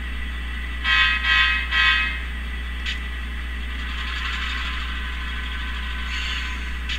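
A Tsunami2 sound decoder's diesel air horn sounds three short blasts through an HO model locomotive's small speaker, the backing-up signal, over the low hum of the idling prime mover. Later the engine sound swells as the throttle is raised.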